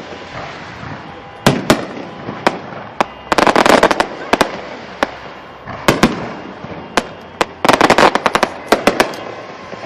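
Fireworks show going off loudly: sharp bangs of bursting shells every second or so, with two spells of dense crackling, one about three seconds in and another later on.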